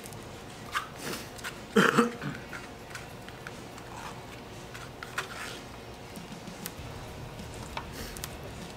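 People eating barbecue chicken by hand: chewing and lip-smacking with scattered small clicks, and a brief louder sound about two seconds in.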